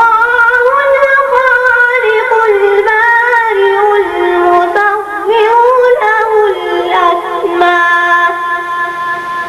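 A single high voice chanting melodically without accompaniment, in long held notes ornamented with quick turns in pitch.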